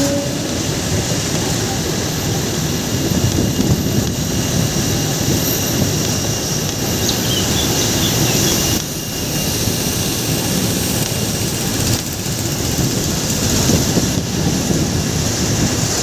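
Jet aircraft engines running steadily: a continuous rumble with a strong high hiss, dipping briefly about nine seconds in.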